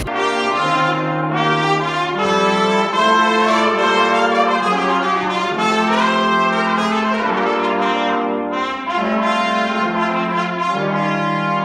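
A small brass ensemble with a trombone plays live, several parts holding notes together in slow-moving chords.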